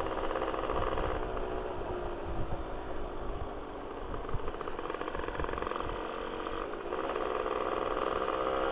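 Two-stroke engine of a Yamaha V80 fitted with a Kawasaki Ninja R cylinder block and head and an aftermarket exhaust, running while ridden, with a low rumble of road and wind noise underneath. The engine pitch falls over the first couple of seconds as it eases off, then rises again about seven seconds in as the throttle opens.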